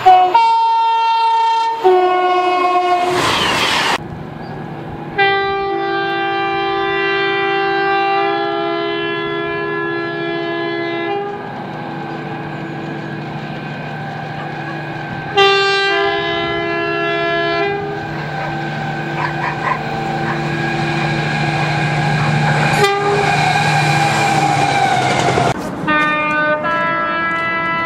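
Train horns from several trains, one after another with abrupt cuts between them. There are short two-tone blasts, one blast of two close tones held together for about six seconds, and a final high-then-low two-tone call near the end.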